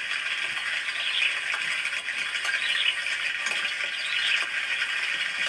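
Steady, high buzzing chorus of insects that swells and fades every second or so.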